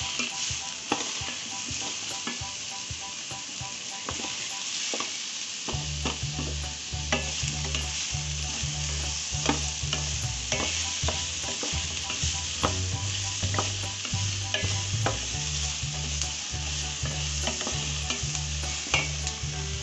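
Brinjal pieces and spices frying in oil in a stainless steel pot, sizzling steadily while a wooden spatula stirs and scrapes against the metal, with frequent clicks. From about six seconds in, a low rhythmic hum runs underneath.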